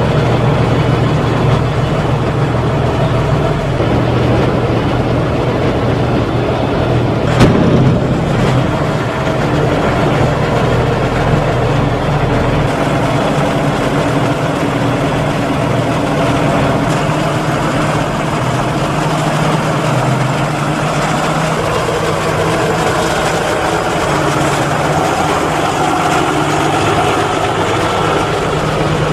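Tractor diesel engines running steadily, with a single sharp bang about seven seconds in.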